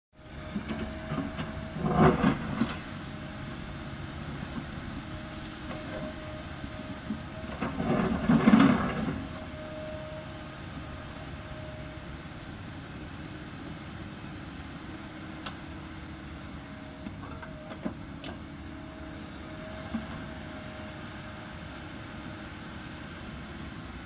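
Kobelco 220 hydraulic excavator's diesel engine running steadily while digging into a dirt hillside, with two louder bursts of noise from the digging, about two seconds in and again around eight to nine seconds in.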